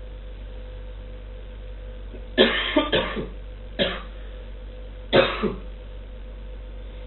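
A person coughing four times in short, harsh bursts over about three seconds, the first two close together, over a steady low room hum.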